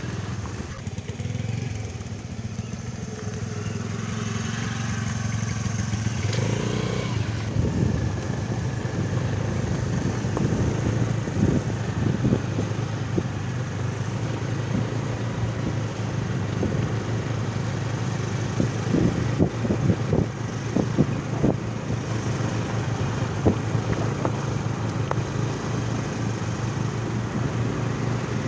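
Small motor scooter engine running steadily at low cruising speed, with the rumble of the ride over it. A cluster of short knocks comes about two-thirds of the way through.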